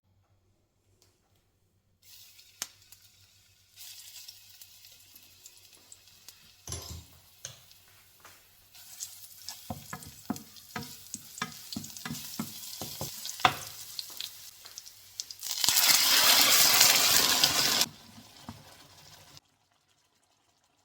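Kitchen preparation sounds: a utensil knocking against a bowl in a steady rhythm of about two to three strokes a second, as in stirring or mixing, then a loud rushing hiss for about two seconds near the end.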